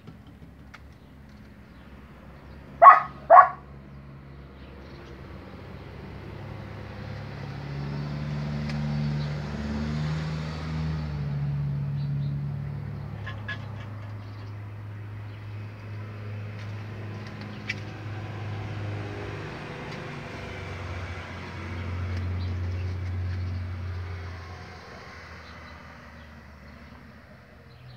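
A dog barks twice in quick succession about three seconds in. Then a motor vehicle's engine runs at low pitch for most of the rest, swelling twice and fading near the end.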